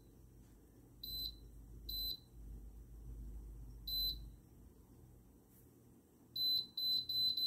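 Countertop air fryer oven's control panel beeping as its time button is pressed, one short high beep per press while the cooking time is stepped down. Three beeps come a second or two apart, then a quick run of about five near the end.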